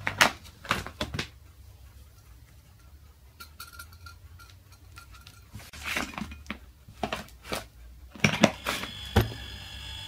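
A hermetic fridge compressor's steady hum stops at the start, followed by sharp clicks and clinks as the gauge's plastic syringe fitting and tubing are handled and moved. Just after nine seconds in, a second fridge compressor starts up with a steady hum and a high whine as it begins pumping.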